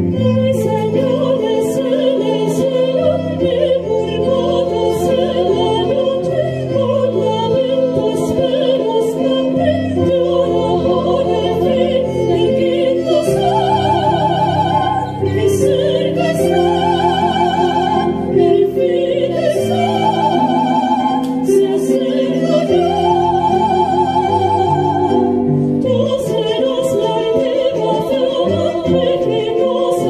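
Two sopranos singing in operatic style over keyboard piano accompaniment, holding long high notes with vibrato through the middle of the passage.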